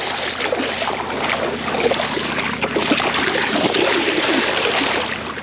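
Water splashing and churning close to the microphone as a bull shark is released by hand in the shallows, continuous and irregular.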